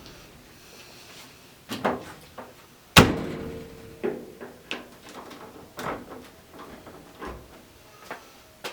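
A screwdriver prying and knocking at the seam of a Samsung gas dryer's sheet-metal top panel. It makes a series of sharp metal clicks and taps. The loudest comes about three seconds in and is followed by a brief metallic ring.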